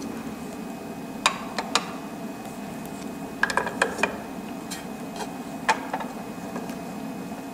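Clicks and knocks of small plastic and metal parts as the blade holder is taken out of a vinyl cutter's tool carriage clamp and a pen adapter fitted in its place: a few sharp clicks, a quick cluster about halfway through, then scattered single ones, over a steady low hum.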